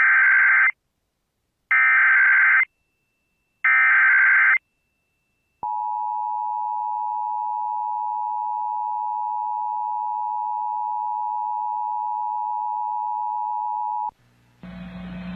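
Emergency Alert System SAME header: three short, identical bursts of warbling digital data tones. They are followed by the EAS attention signal, a steady two-tone beep held for about eight and a half seconds that cuts off abruptly. It marks the start of an Amber Alert broadcast. A low hum comes in near the end.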